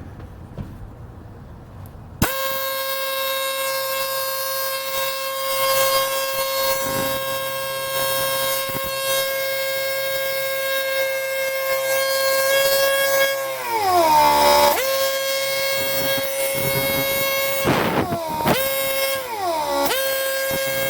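Boat air horn system under test, compressor running and feeding air out through the horn hoses: a loud, steady pitched tone starts about two seconds in. It sags in pitch and recovers around the middle, then dips briefly twice more near the end. The air compressor is delivering good pressure; the fault lies in the horn trumpets.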